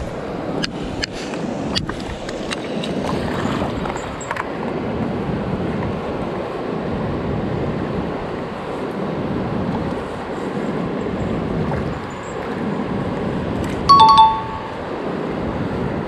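Mountain stream water rushing steadily, with a few light clicks in the first few seconds. About 14 seconds in, a loud, short two-note falling chime, like a doorbell ding-dong, rings out over it.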